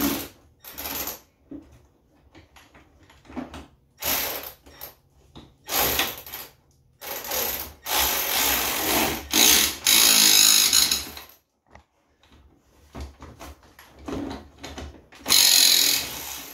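Hand tool work on the frame of a 2000 Honda FourTrax 300 ATV: a series of short mechanical rattling and scraping bursts with pauses between. A longer burst lasts about three seconds, starting around eight seconds in, and another comes near the end.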